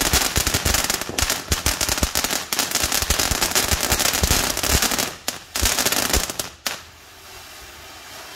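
Ground fountain firework spraying sparks with a dense crackling hiss. About seven seconds in the crackling cuts off, leaving a softer steady hiss as the fountain burns down.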